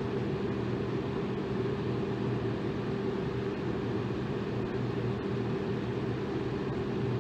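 Electric fan running steadily: an even whooshing hiss of moving air over a steady low motor hum.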